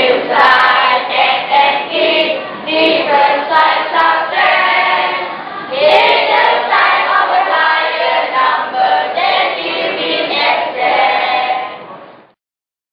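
A class of schoolchildren singing together, a song that sets out the sign rules for adding and subtracting integers. The singing fades out quickly about twelve seconds in.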